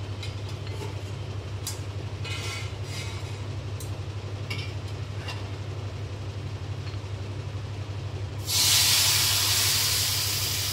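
Milk poured into a hot kadhai of ghee-roasted vermicelli, setting off a loud sudden hiss of sizzling and steam about eight seconds in that slowly fades. Before it, a low steady hum with a few faint ticks.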